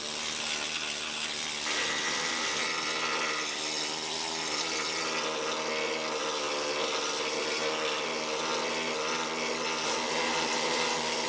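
Pneumatic needle scaler running steadily, its needles hammering on the bandsaw's painted metal base to chip off the old paint; it gets a little louder and brighter just under two seconds in.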